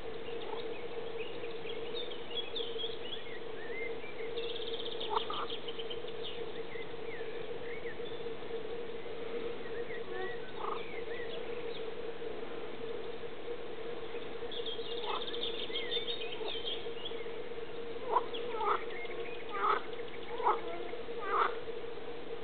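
Frogs croaking in a pond: short calls at a few scattered moments, then five loud croaks in quick succession near the end, over a steady hum. Birds chirp and trill in the background.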